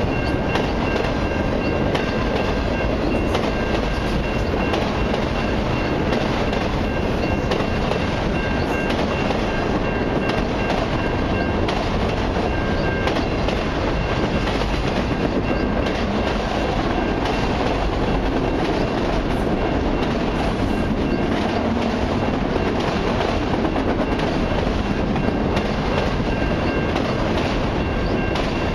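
Freight train of autorack cars rolling past: a steady rumble of steel wheels on the rails with rapid clicks as the wheels cross rail joints, and a faint high ringing that comes and goes.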